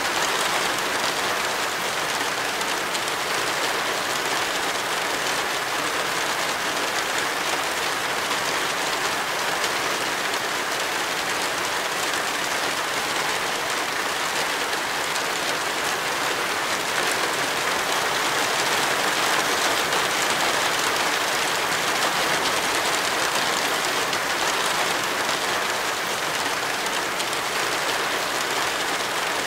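Rain falling steadily, an even hiss with no breaks or single drops standing out.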